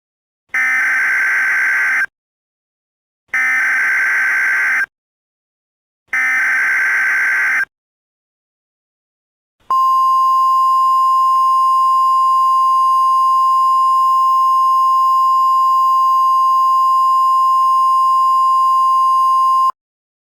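Emergency Alert System tones: three short data bursts of the SAME header, each about a second and a half long with a pause between them, then a single steady attention tone held for about ten seconds that cuts off suddenly. Together they announce that an alert message follows.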